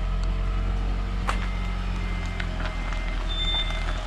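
A car's electronic warning beeper sounding a steady run of short, even beeps, about one and a half a second, starting after a click about a second in, over the steady low hum of the Toyota Prius.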